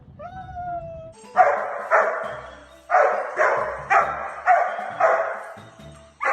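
A dog barking repeatedly, about eight barks roughly half a second apart, after a short high whine in the first second.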